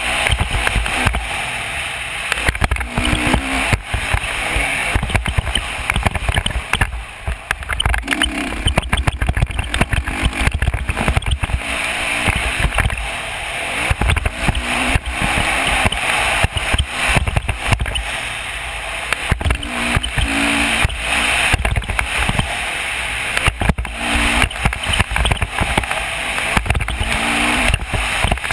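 Dirt bike being ridden hard around a motocross track, its engine rising and falling under a constant rush of wind buffeting and jolts from the bumps on a bike-mounted camera's microphone.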